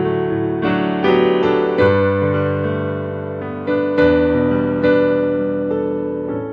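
Keyboard playing slow, sustained chords, with new chords struck about a second in, near two seconds, and twice more around four and five seconds, each ringing on and slowly fading.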